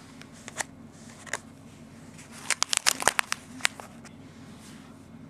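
Plastic bag of a nanoblock kit crinkling as it is handled and turned over. It gives a few sharp crackles at first, then a quick flurry of them about two and a half seconds in.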